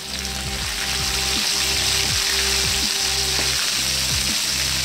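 Chicken pieces deep-frying in hot oil in a wok, sizzling steadily and a little louder from about a second in, as a metal spatula turns the pieces.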